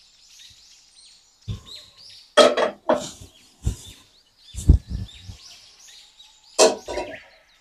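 Stainless steel cooking pot set down on a gas stove's metal burner grate with several clunks and scrapes, then its glass lid clattering into place near the end.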